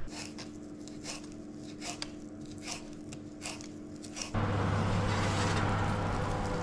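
Kitchen knife chopping fresh parsley on a plastic cutting board: irregular sharp taps over a low steady hum. About four seconds in, a louder steady rush with a low drone takes over, from a running oven with its door open.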